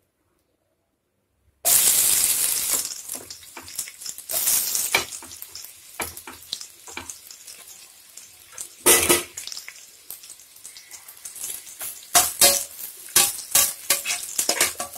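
Sliced onion and green chillies dropped into hot ghee and oil in a pressure cooker, setting off a sudden loud sizzle about a second and a half in. The frying sizzle carries on while a spatula scrapes and knocks against the pot, most often in the second half.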